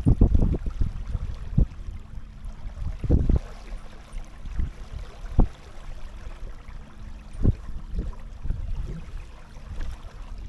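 Irregular low gusts and thuds of wind buffeting the microphone, over a steady wash of river water around a kayak.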